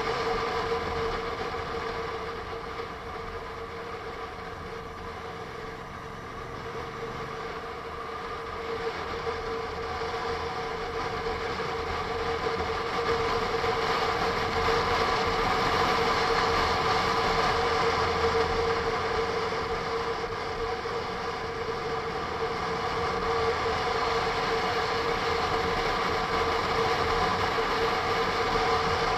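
Onboard sound of a Honda NC750S DCT motorcycle under way: engine and wind noise with a steady whine. It eases for a few seconds about four seconds in, then builds again.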